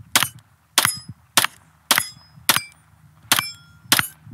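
Pistol firing unsuppressed, a steady string of about seven shots a little over half a second apart, some followed by a brief thin ring.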